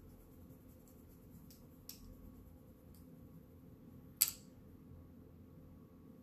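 Makeup being handled: a few faint ticks, then one sharp click about four seconds in, over a low steady room hum.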